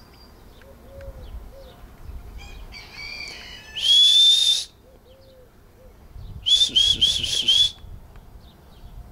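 A person whistling to call the prairie dogs out: one long, slightly rising whistle about four seconds in, then a quick run of five short whistles about two seconds later.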